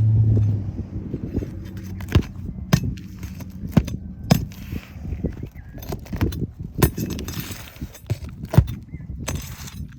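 Irregular sharp clicks, taps and scraping from working loose old, brittle asphalt roof shingles and their nails. A low hum fades out in the first second.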